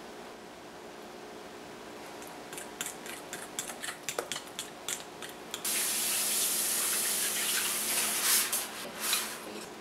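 A fork stirring melted chocolate into cream cheese in a glass bowl, a quick run of light clicks and scrapes against the glass. About halfway through, a steady hiss starts suddenly and becomes the loudest sound, swelling twice near the end.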